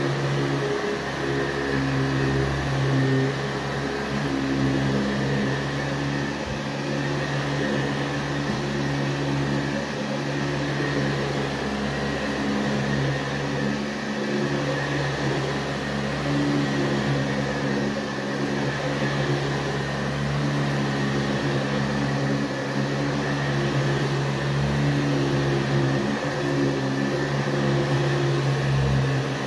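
Motor of a 1977 Hoover-built JCPenney Boxtop Convertible upright vacuum cleaner running steadily, a continuous hum with a rushing-air sound.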